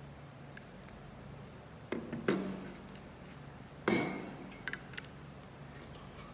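Kitchen utensils knocking and clinking against a pot and strainer while soy-milk tofu curds are strained: three sharp knocks, the third the loudest with a short metallic ring, then a couple of light clicks, over a steady low hum.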